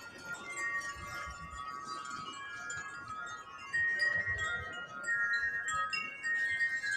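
Several wind chimes ringing in gusty wind, many overlapping sustained notes, growing louder about four seconds in.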